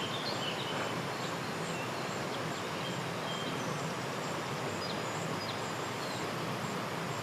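Steady rush of creek water running over rocks, with faint bird chirps now and then.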